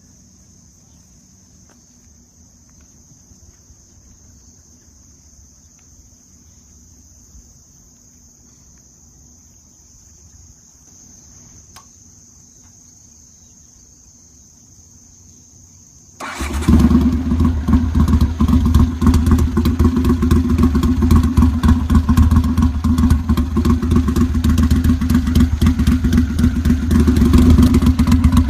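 A faint steady high-pitched whine, then about sixteen seconds in a modified Honda CX500's V-twin engine starts abruptly and runs loudly with a rapid pulsing exhaust beat.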